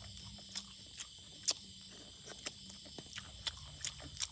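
Eating cooked snails, with about eight short, sharp clicks from picking the meat out of the shells with a toothpick and chewing, roughly two a second. Under them runs a steady, high-pitched drone of insects.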